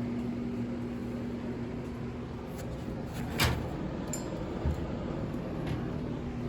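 Quiet room tone with a low steady hum that fades out about a second and a half in, then a single sharp click about three and a half seconds in and a soft thump about a second later.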